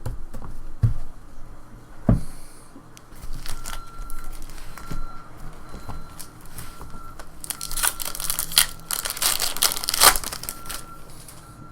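Trading-card pack wrappers being torn open and crinkled by hand, with a few light knocks early on and the loudest spell of crinkling about eight to ten seconds in. A vehicle's reversing beeper sounds faintly in the background, one short beep every second and a half or so.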